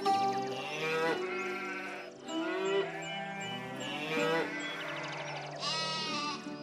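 Music with a steady low drone, overlaid by a series of wavering pitched calls, each about half a second to a second long.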